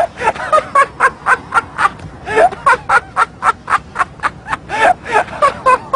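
A man laughing hard: a long run of quick ha-ha bursts, about four or five a second, with brief catches for breath.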